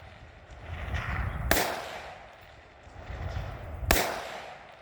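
Two gunshots, about two and a half seconds apart, each followed by a long rolling echo.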